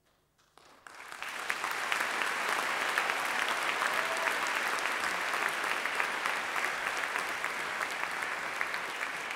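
Audience applauding: a few claps about half a second in swell within a second into steady, dense applause that eases slightly near the end.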